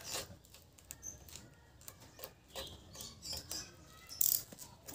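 Light, irregular clicks and taps from hands working on the casing of a Niko single-burner gas stove, with a louder brief scrape about four seconds in.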